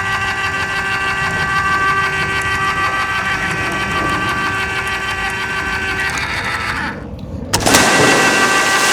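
A toy crane's small electric winch motor runs with a steady whine as it lowers the rope. It cuts out briefly about seven seconds in, then starts again louder.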